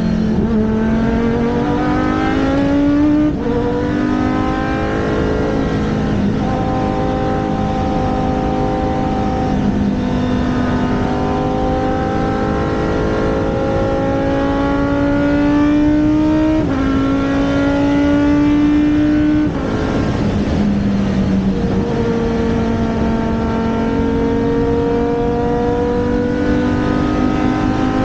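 Race car engine running hard on track, its pitch climbing steadily under acceleration and jumping abruptly at each gear change, a few times over.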